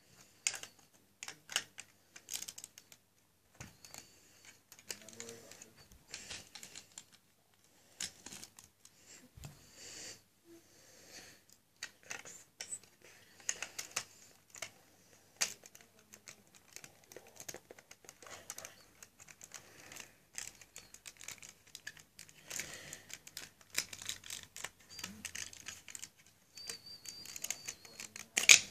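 Lego bricks from a Hogwarts Express train set clicking and rattling against each other as the pieces are handled, in irregular bursts of sharp plastic clicks. The loudest click comes near the end.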